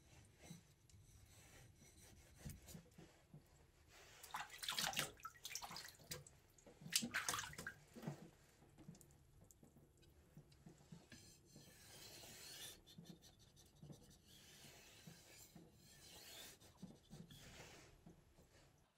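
Single-bevel sashimi knife drawn across a wet whetstone, faint scraping strokes of steel on stone, with two louder strokes about five and seven seconds in. The blade is being worked flat on the stone to clean off the burr.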